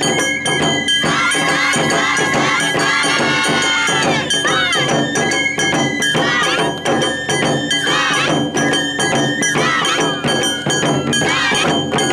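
Live Japanese festival dance music: drums beating a quick, even rhythm with rattling percussion and a high, ornamented melody over it.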